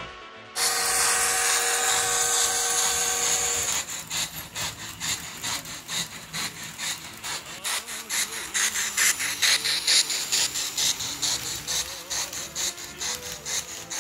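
Sound from a Loksound 5 micro DCC decoder in an N scale C62 steam locomotive model, played through its tiny speaker. A steam whistle is held for about three seconds, then rhythmic steam chuffing runs at about three beats a second as the locomotive runs.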